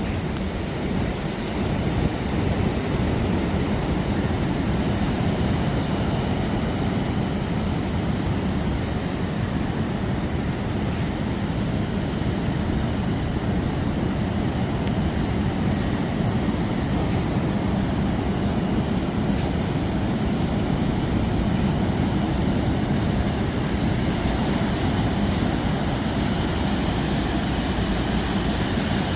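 Steady roar of wind and ocean surf, even in level, with no separate events standing out.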